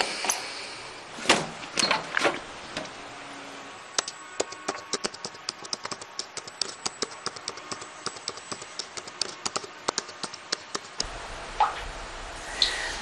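A few knocks and clicks, then a quick run of keystrokes on a computer keyboard lasting several seconds. Near the end the typing stops and a low hum comes in.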